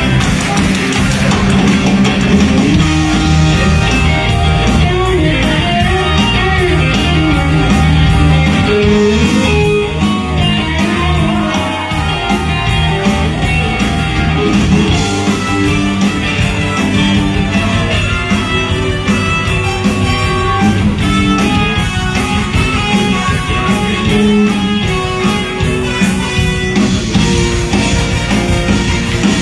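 Live rock band playing, with electric guitar and a drum kit keeping a steady beat.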